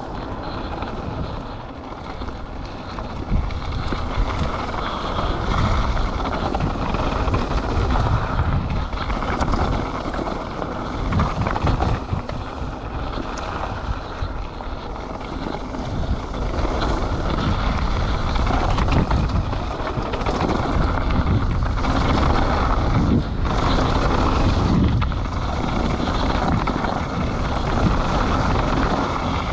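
Mountain bike riding fast down a dirt downhill trail: wind rushes over the microphone, with tyres rolling on the ground and a steady run of knocks and rattles from the bike over bumps.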